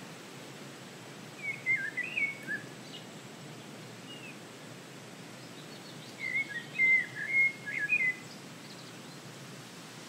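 Forest ambience: a steady background hiss, with a songbird singing two short phrases of quick, warbled whistled notes, the first about a second and a half in and the second about six seconds in.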